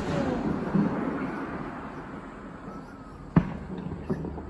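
Aerial fireworks bursting: the rumbling echo of a burst fades away over the first two seconds, then a sharp bang comes about three and a half seconds in, followed by a smaller crack half a second later.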